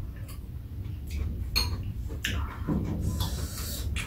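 Metal spoons clinking against bowls during a meal: a handful of light, separate clinks spread over a few seconds, over a low steady rumble.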